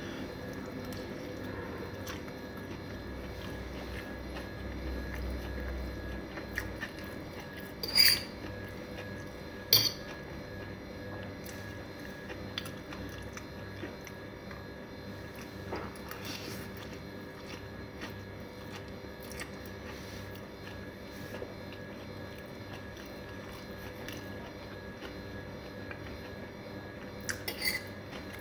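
Fork clinking and scraping on a plate while noodles are twirled and eaten, with soft chewing. A few sharp clinks stand out, a pair about a third of the way in and another pair near the end, over a steady low hum.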